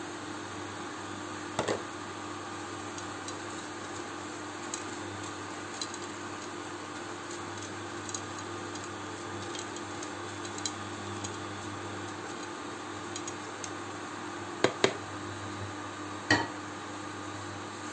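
Wooden spatula stirring fusilli pasta in a non-stick frying pan, with light scrapes and soft ticks of the pasta, and a few sharp knocks on the pan: one early, two close together near the end, then one more. A steady low hum runs underneath.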